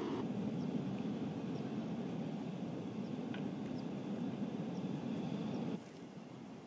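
Steady low rushing outdoor ambience with a few faint, short high chirps. The rush drops to a quieter hiss about six seconds in.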